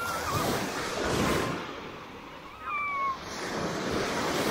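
Sea waves breaking and washing up the shore in two swells, one about a second in and another near the end. About three seconds in, a short high call slides down in pitch.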